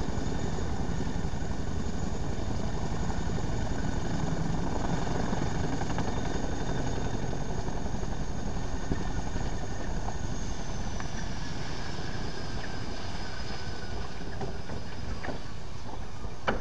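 Boeing CH-47 Chinook helicopter running on the ground: its twin turbine engines and tandem rotors make a steady noise with a high turbine whine. The whine drops in pitch about ten seconds in, and a few faint clicks come near the end.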